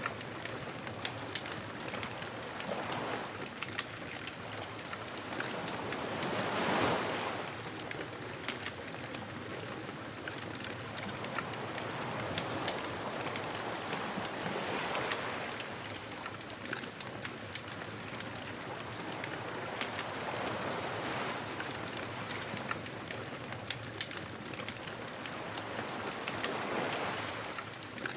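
Waves washing onto a beach in slow swells, the biggest about seven seconds in, over the steady crackle and pop of a bonfire.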